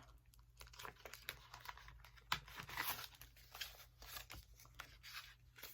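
Paper banknotes being handled, with faint, intermittent rustling and crinkling.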